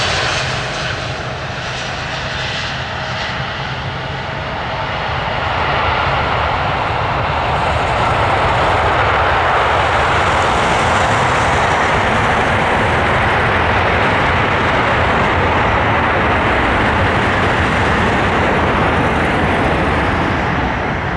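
Airbus A320 jet engines as the airliner lands and rolls out on the runway. A faint whine fades in the first seconds, then the engine noise swells about six seconds in and holds steady before easing slightly near the end.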